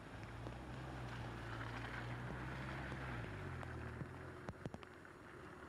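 Car engine humming at low speed with tyre hiss on a wet road; the engine note drops lower about three seconds in. A few sharp clicks about four and a half seconds in.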